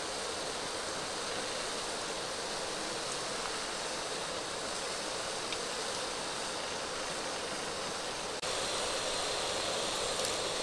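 Steady hiss of water boiling and steaming in a wok under a tray of ducks being steamed, a little louder from about eight and a half seconds in.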